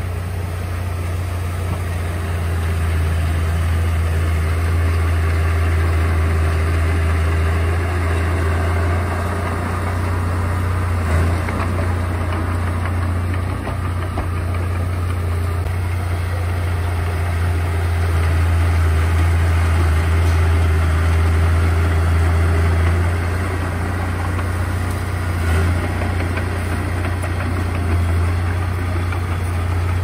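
Komatsu D31A crawler bulldozer's diesel engine running with a steady deep drone, growing somewhat louder for a few seconds twice.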